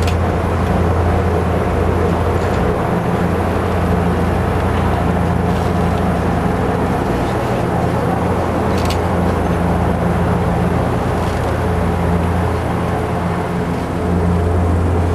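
Zeppelin NT airship's propeller engines droning steadily, heard from inside the gondola cabin as a strong low hum.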